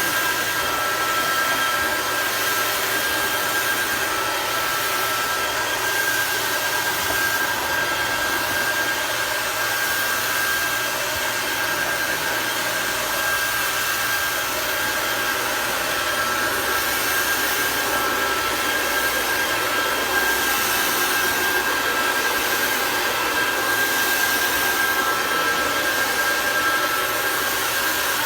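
Small electric motor whining steadily over a continuous hiss, as from a remote-control sprayer truck's pump running while it sprays water.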